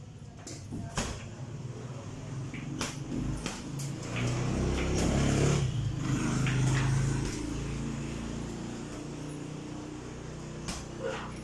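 Boxing-glove punches landing on a hanging heavy bag: scattered sharp thuds with gaps between combinations. A low rumble swells up about four seconds in and eases off after about seven seconds, louder than the punches.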